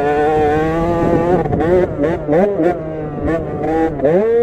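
KTM SX50's 50cc two-stroke engine revving hard. Its pitch holds high at first, then rises and falls several times as the throttle is worked, with brief dips about two seconds in and near the end.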